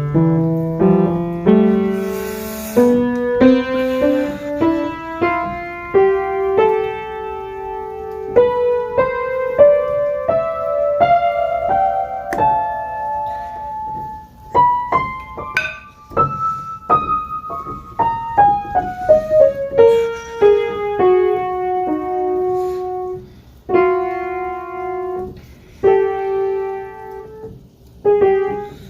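Background piano music, a run of single notes that climbs in pitch, then descends and settles.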